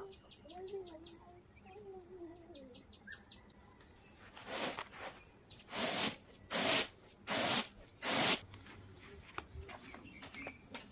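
Five short swishing, rushing bursts, each about half a second, from a large metal basin being handled and worked a little past the middle. Faint insect chirps and a wavering bird call come before them.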